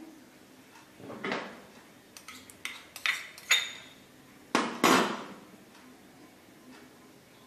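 Metal spoon clinking and tapping against a steel mixing bowl: a run of separate sharp clinks, a few with a short metallic ring, the loudest near the end.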